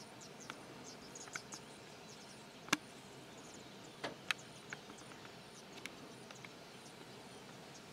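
Outdoor bush ambience: a high insect note pulsing at a regular beat, scattered short bird chirps, and a few sharp clicks, the loudest about two and a half seconds and four seconds in.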